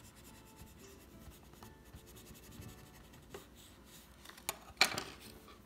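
Burnishing tool rubbing over a paper repair on a cardboard box flap: faint scratchy strokes, with two sharper, louder scrapes near the end.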